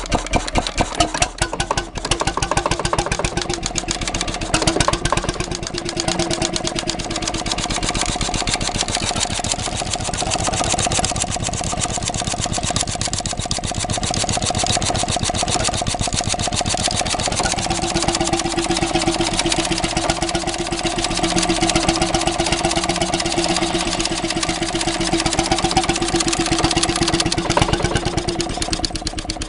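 Circa-1930 Petter 'S' type 5 hp two-stroke semi-diesel stationary engine running steadily, its exhaust beating rapidly and evenly. A steady humming tone rides over the beat, strongest in the second half.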